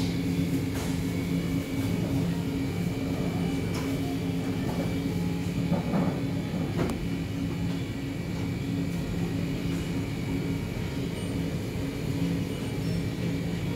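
Steady low hum of a shop's machinery, with a few faint clicks and knocks partway through.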